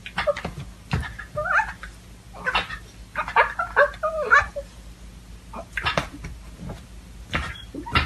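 A domestic cat yowling in a run of calls that bend up and down while it boxes with a dog, with a few thumps from the scuffle about a second in and again near the end.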